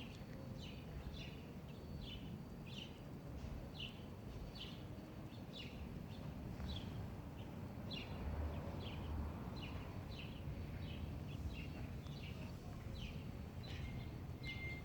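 Outdoor birdsong: a bird repeating a short, high, falling chirp over and over, roughly one or two a second, over a faint, steady low rumble.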